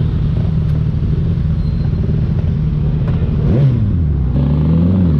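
Suzuki Katana motorcycle engine through an Orion aftermarket exhaust pipe, running under way. About three and a half seconds in its pitch rises and falls quickly, then settles onto a lower note that climbs slowly as it pulls again.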